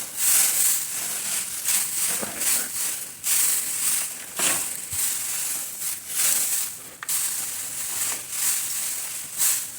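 Rake dragging and fluffing hay bedding across a pen floor: repeated scratchy rustling strokes, about one a second.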